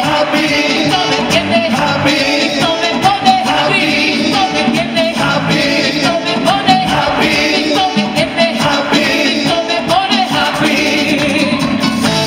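A woman singing solo into a microphone over amplified musical accompaniment, a continuous melodic vocal line.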